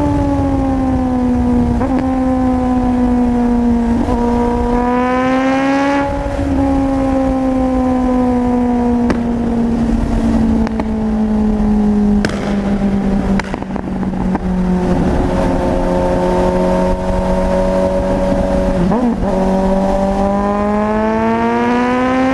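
Four-cylinder motorcycle engine running at high revs, its note slowly sagging and then climbing again as the throttle changes. Brief breaks in the note come every few seconds, and the pitch falls lowest about two-thirds of the way through before rising steadily near the end.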